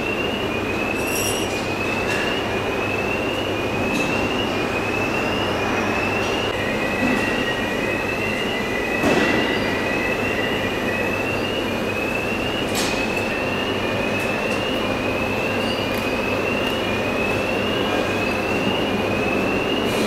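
Car assembly-line factory floor noise: a steady, loud machinery hiss and hum with a short rising chirp repeating about once a second. A high steady whine joins for a few seconds near the middle, and there are a couple of sharp clicks.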